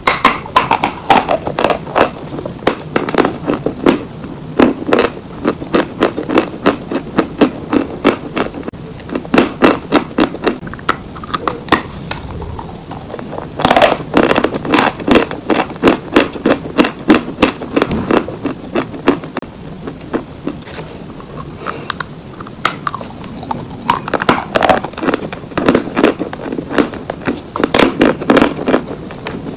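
Close-up chewing and crunching of chalk in the mouth: a steady run of crisp, sharp crunches several times a second, easing a little about two-thirds of the way through.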